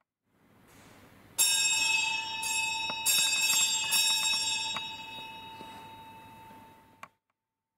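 A bell struck about five times, each strike setting off a bright, high ringing with several tones that rings on and slowly dies away, then cut off suddenly with a click near the end.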